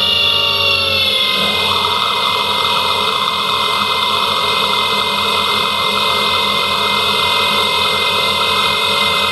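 CNC lathe turning a metal bar: the spindle runs with a steady whine, and the rough noise of the tool cutting comes in about a second and a half in and holds steady as it feeds along the bar.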